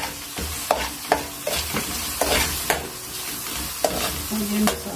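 Onions and spices frying with a steady sizzle in oil in a metal karahi, while a metal spoon stirs them, scraping and clinking against the pan several times.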